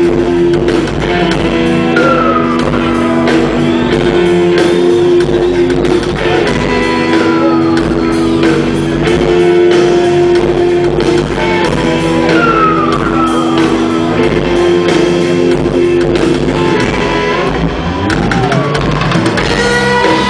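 Live rock band playing loud: electric guitar and bass over a drum kit. Held guitar notes repeat in a riff, with short falling slides recurring every few seconds.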